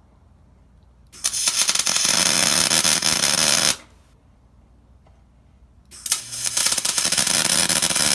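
Electric welding arc crackling and sizzling in two runs of a few seconds each, the first starting about a second in and the second starting about six seconds in, each cut off abruptly when the trigger is released.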